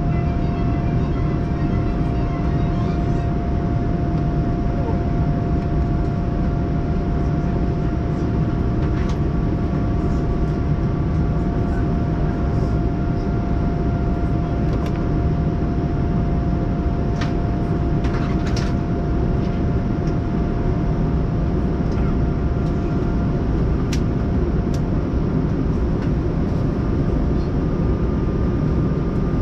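Steady in-flight cabin noise of a Boeing 787-9 airliner: the even, low rush of air and engines, with a constant hum-like tone running under it and a few faint clicks.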